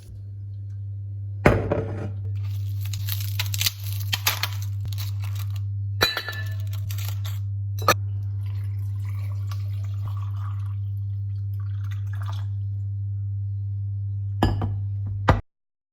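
Glassware clinking and knocking, with a stretch that sounds like liquid being poured, over a steady low hum. The hum and the clinks cut off suddenly just before the end.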